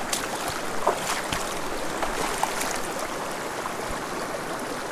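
Small mountain stream running over rocks close by, a steady rush of water with a few faint ticks.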